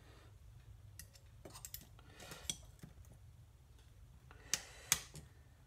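A circlip being fitted onto a VW 091 transaxle pinion shaft with snap-ring pliers: faint small metallic clicks and scrapes, then two sharper clicks about four and a half seconds in.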